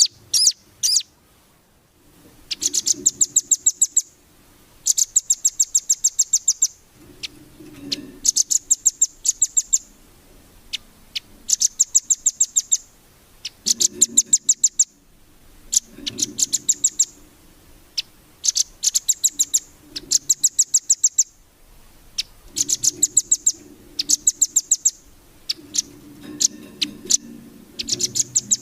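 Velvet-fronted nuthatch (rambatan) singing: runs of sharp, very rapid high chips, each run about one to two seconds long, repeated every couple of seconds.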